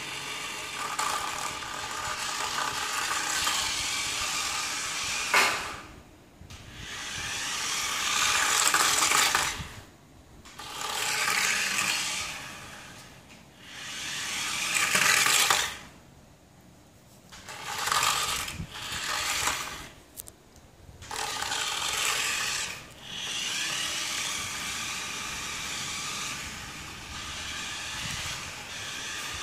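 Small electric motor and gears of a toy remote-control car whirring in repeated bursts of two to four seconds, stopping and starting several times.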